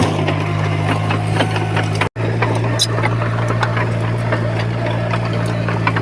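Heavy construction machine's diesel engine running steadily, with scattered clanks and knocks over it. The sound cuts out for an instant about two seconds in.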